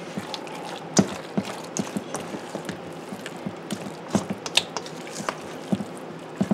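Spatula knocking and scraping against a stainless steel mixing bowl while stirring a thick, creamy mixture, with irregular clicks and taps.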